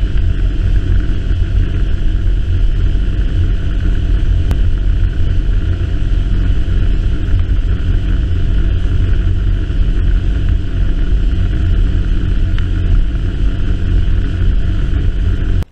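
Small boat's outboard motor running steadily at speed, mixed with the rush of wind and water from the boat's movement. It cuts off abruptly at the end.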